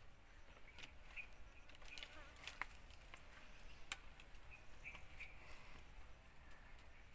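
Near silence: faint rural outdoor ambience with a few short, faint high chirps and two small sharp clicks, about two and a half and four seconds in.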